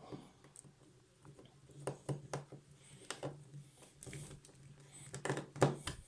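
Screwdriver tightening small terminal screws on a plastic switch housing: a string of small clicks and scrapes, the loudest near the end, over a faint low steady hum.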